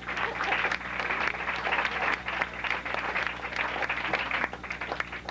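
Audience applauding: many hands clapping in a dense run that thins a little near the end.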